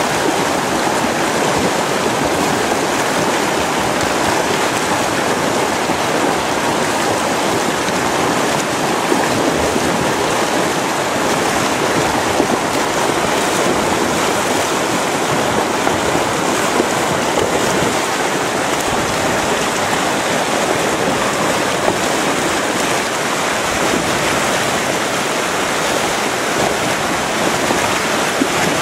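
Fast, swollen mountain river rushing in white water over rocks: a steady, loud, unbroken rush.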